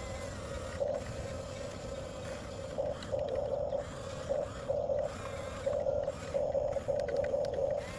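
Electric drive motors and gearboxes of a 1/14 scale Huina RC bulldozer whining in short bursts, starting and stopping every second or so as the machine is driven.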